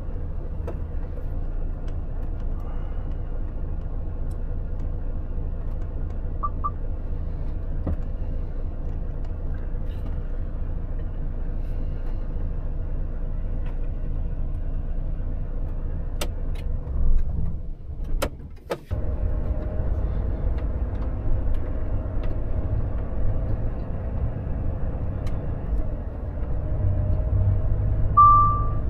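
Volvo FH truck engine running with a steady low rumble. About two-thirds through, it briefly drops away with a few sharp clicks, then comes back with a slowly rising whine as it pulls again. A short high beep sounds about six seconds in and again near the end.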